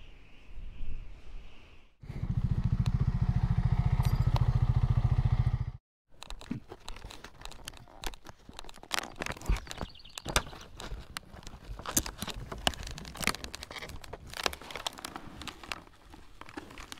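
A motorcycle engine runs steadily for a few seconds, then cuts off abruptly. After that come irregular footsteps and knocks from the camera being carried.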